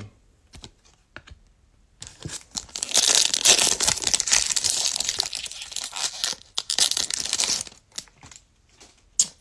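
Foil wrapper of a Panini Select basketball card pack being torn open and crinkled: a dense crackling that starts about two seconds in and lasts about six seconds, with a few short clicks before and after it.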